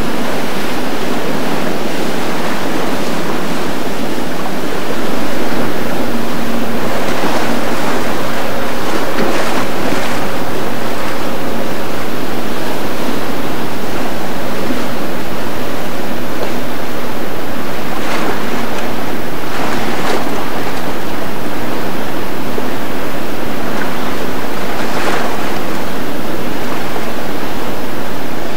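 Rough, churning water and boat wakes rushing and splashing, with wind on the microphone, a faint outboard engine hum and a few louder splashes.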